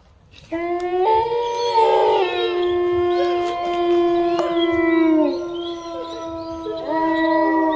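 Several dogs howling together in long, drawn-out overlapping notes, starting about half a second in; the howls sink and fade a little past the middle, and a new howl starts near the end.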